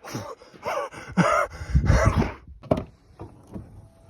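A person's breathy gasps and sighs, several in a row, followed by a couple of sharp clicks a little past halfway.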